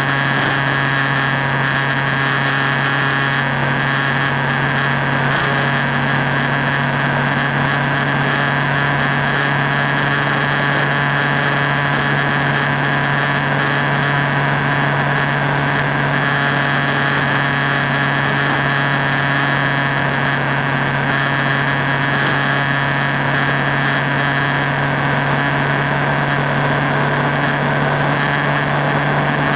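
Motorcycle engine holding a steady highway cruise, its drone staying at one pitch, with constant wind and road noise.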